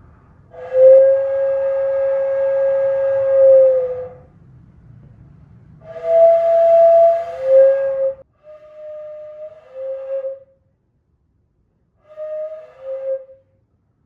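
Breathy, flute-like blown notes: one long held tone, then three falling two-note figures, each a higher note stepping down to a lower one, the last two short.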